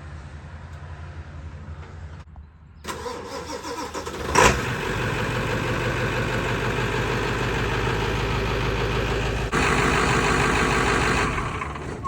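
An engine is started and runs: a sharp loud burst about four seconds in, then steady running that steps up in level near the end before fading.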